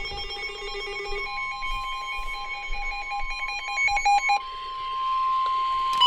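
Emergency Alert System tones on a weather-radio broadcast: chattering, stepping electronic data tones for the first few seconds, over a steady single high tone near 1 kHz that comes in about a second in and swells to full loudness near the end, the warning alarm tone that heads a new severe thunderstorm warning.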